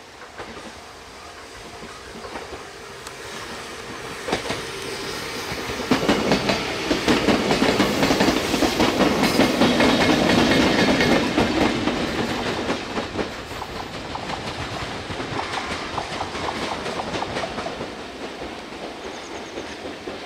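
E493 series two-car unit and EF64 electric locomotive passing close by, wheels clacking over rail joints. The sound builds, is loudest as the cars go by about six to twelve seconds in, then fades as the train moves on. The train is drawing in to its operational stop at the station.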